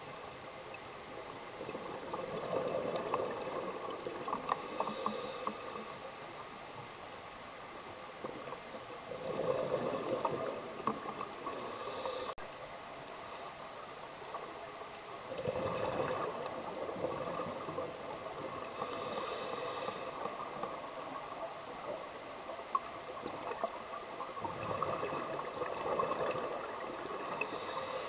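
Scuba diver breathing through a regulator underwater: a hissing inhale, then the bubbling of the exhale, repeating slowly, about four breaths in all, roughly one every seven seconds.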